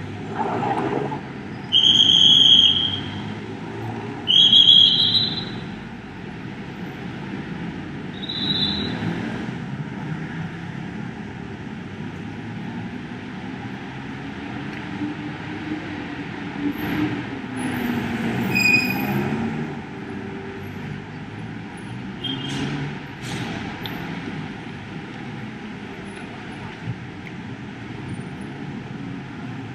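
City street traffic running steadily, with two loud high-pitched squeals of about a second each, two and four and a half seconds in, and a few fainter ones later.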